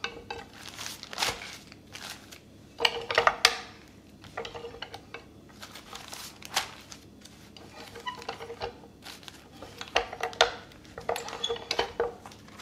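A metal tortilla press lined with a plastic sheet being worked by hand as corn masa dough is pressed into rounds: scattered knocks and clatters from the press's lid and handle, with plastic rustling between them.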